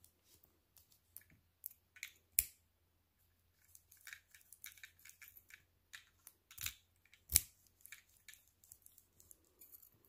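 Kwikset SmartKey lock cylinder and its key handled in the fingers: a scatter of small metallic clicks and ticks, with two sharper clicks about two and a half seconds in and again about seven and a half seconds in.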